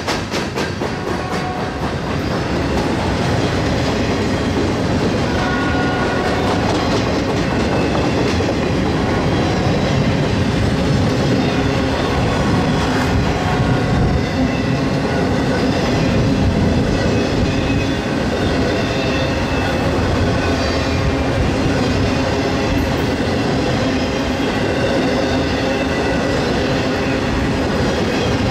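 Freight train rolling past, a steady rumble of railcars with wheels clicking over the rail joints.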